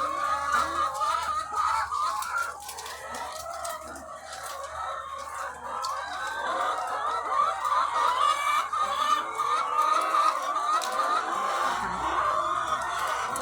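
A large flock of egg-laying hens clucking and calling all at once, a dense, continuous chorus of many overlapping short calls.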